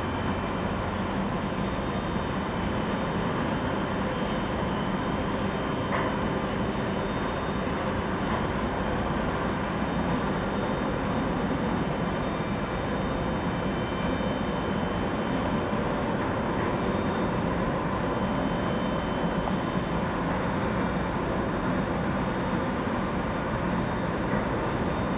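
Steady rumbling hum of an LPG tanker's engines and machinery as the ship passes close by, a constant noise with a few faint steady tones in it.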